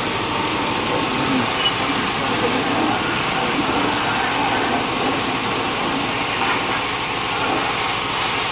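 Car-wash pressure washer running steadily: the pump motor and the high-pressure water jet hissing as it sprays the underside of a car.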